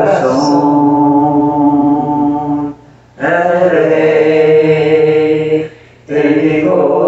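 Spanish-language worship song: a voice sings long, held notes over a sustained accompaniment. The phrases break off briefly about three and six seconds in.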